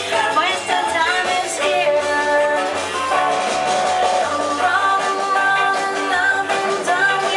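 Recorded rock-and-roll style song with singing, a bass line stepping between low notes, and held melody notes.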